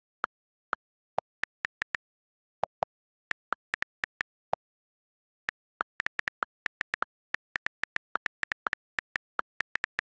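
iPhone on-screen keyboard click sounds, one short tick for each key tapped while typing. The taps come at an uneven typing pace, stop for about a second near the middle, then speed up into a quick run.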